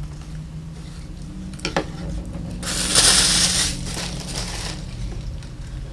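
Packaging and helmet parts being handled by hand. There are a couple of sharp knocks a little under two seconds in, then a loud rustle lasting about a second, over a faint steady hum.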